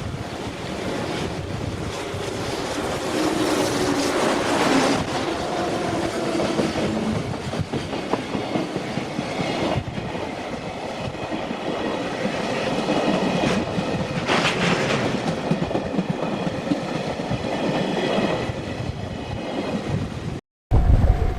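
Freight train passing at speed, its wagons' wheels clattering over the rail joints. The sound cuts off abruptly near the end.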